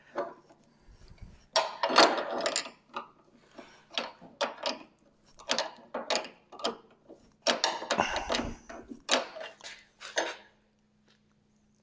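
Wrench working the jam nut on a sawmill head's height-adjusting bolt, metal on metal: a run of irregular clinks and clanks that stops near the end.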